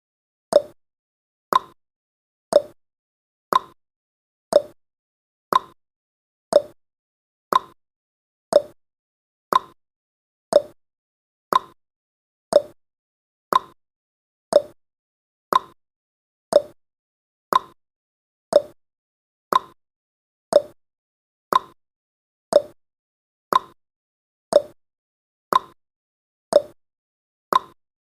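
Clock-ticking sound effect of a countdown timer: one sharp tick each second, alternating between a higher tick and a lower tock.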